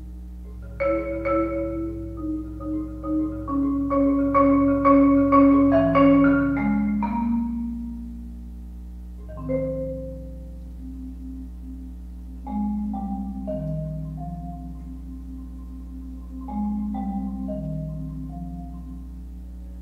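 Solo marimba played with mallets: a flowing run of struck notes over ringing low notes for the first several seconds, thinning out to a few single notes and short phrases of three or four notes with pauses between them.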